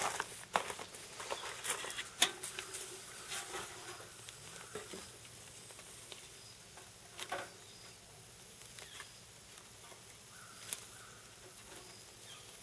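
Sharp clicks and crunches in the first few seconds, then a few isolated metal clicks of tongs against the grate of a small charcoal grill.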